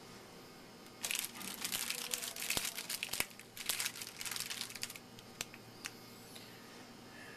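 Foil wrapper of a trading card pack torn open and crinkled in the hands for about four seconds, followed by a few light clicks as cards are handled.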